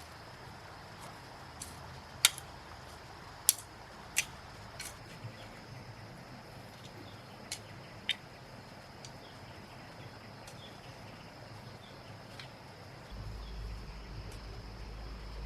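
Steady high-pitched insect drone, broken by several sharp knocks or snaps, the loudest about two and three and a half seconds in. A low rumble comes in near the end.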